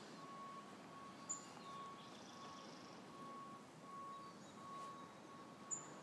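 Faint outdoor ambience: a low steady hiss with a faint tone pulsing on and off about twice a second, and two short high chirps about four seconds apart.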